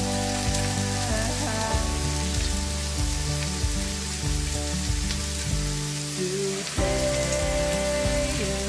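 Diced onion sizzling in oil in a frying pan as it is stirred, under background music with sustained tones and a bass line.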